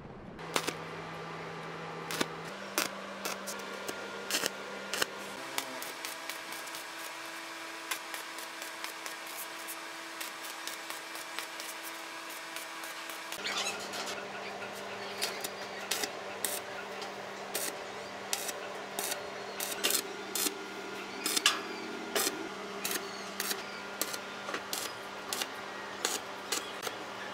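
Stick (arc) welding on square steel tubing: the arc crackles and pops irregularly as tacks and short beads are laid, over a steady hum.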